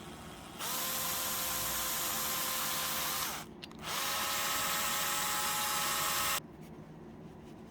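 Electric impact drill motor run twice in short bursts of about three seconds each, spinning up quickly to a steady whine and stopping. The second run is slightly higher in pitch.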